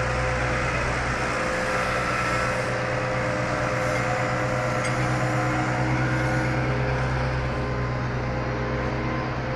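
Heavy diesel machinery running steadily: a constant low engine hum with several steady whining tones above it, without breaks or sharp knocks.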